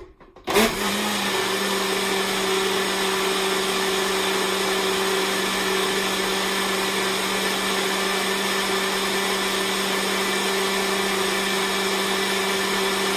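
Cooks countertop blender switched on with a click about half a second in, then running steadily at one speed with a constant motor whine, blending a thick mixture.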